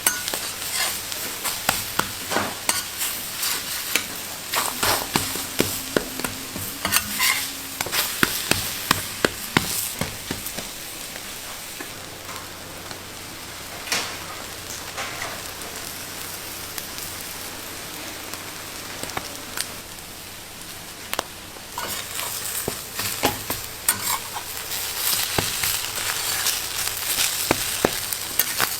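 Food frying and sizzling on a hot cooking surface, a steady hiss broken by many sharp clicks and taps of stirring. It thins out around the middle and picks up again in the last few seconds.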